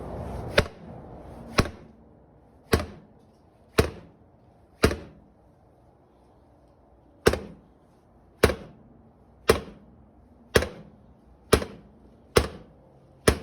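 A dozen hard single blows about a second apart, five then a short pause and seven more: a part of the spreader mount being struck to knock it into place.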